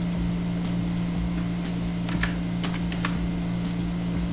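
Computer keyboard keys clicking in short irregular taps as a few letters are typed, over a steady low electrical hum.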